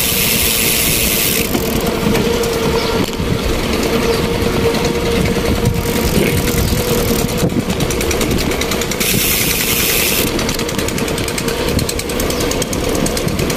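Motorcycle engine running at a steady cruise while riding, with wind buffeting the microphone.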